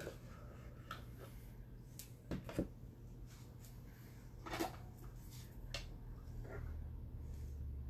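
Quiet knocks and scrapes of a spoon and spatula against a plastic measuring cup and bowl as thick cake dough is scooped out, with a few sharper taps about two and a half and four and a half seconds in, over a low steady hum.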